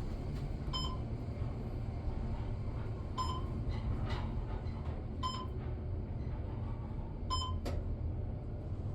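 Elevator car running upward with a steady low rumble. A short electronic beep sounds four times, about every two seconds, as the car passes the floors.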